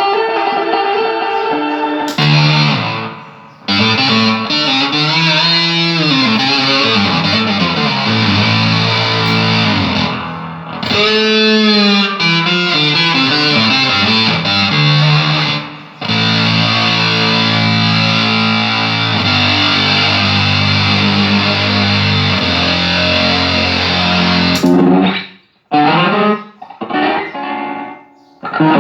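Electric guitar played through a Line 6 POD HD500 multi-effects unit into a Pignose G40V tube amp, a sound test showing the unit passing audio again after repair of its fried A/D converters. Held notes and chords with sliding, bent pitches, ending in a few short chords separated by brief gaps.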